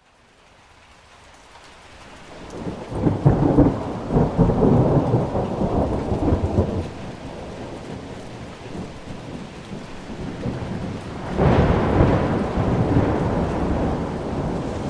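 Thunderstorm: rain hiss fading in, then a long roll of thunder about three seconds in. A second thunderclap breaks about eleven seconds in and rumbles on under the rain.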